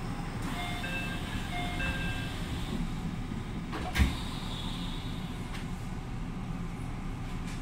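JR Central 313 series electric train's door-closing chime, a two-note chime sounding twice, then its sliding passenger doors shutting with a single loud thud about four seconds in, over the steady low hum of the stopped train.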